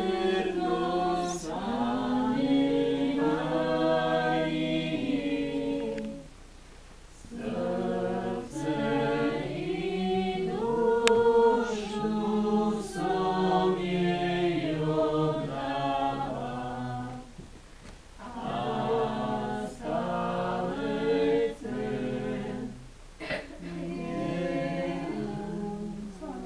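A group of voices singing a hymn unaccompanied, in long held phrases broken by short pauses.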